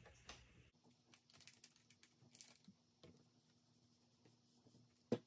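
Near silence, with faint scattered taps of stamping tools and acrylic pieces being handled on the craft mat, and one sharper click near the end.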